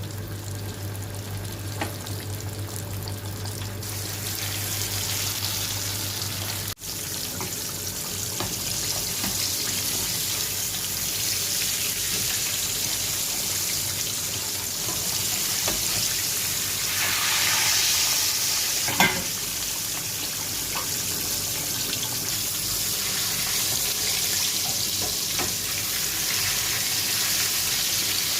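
Whole fish deep-frying in hot oil: a steady sizzle that swells for a moment about two-thirds of the way through. A single sharp knock comes just after the swell.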